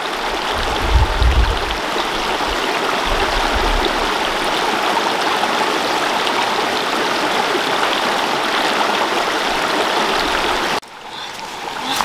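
Fast-flowing rocky stream rushing over stones in white-water rapids, a steady, loud water noise with a couple of brief low rumbles about a second in and again around three to four seconds in. The water sound cuts off abruptly near the end.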